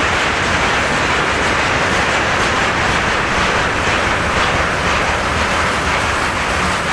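Freight train of rail tank cars rolling past, a steady noise of steel wheels on the rails with a low rumble underneath.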